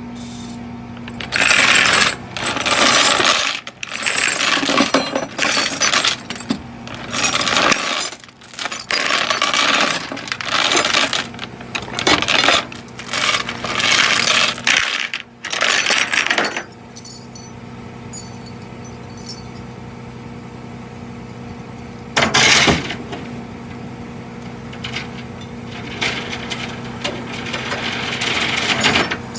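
Vehicle engine idling steadily under repeated loud metallic clattering and rattling. The clatter comes in a long run of bursts over the first half, returns once about 22 seconds in, and builds again near the end.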